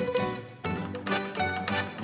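Ensemble music led by a bowl-back mandolin picking a quick melody over guitars, accordion and double bass. The music drops briefly about half a second in, then the whole group comes back in together.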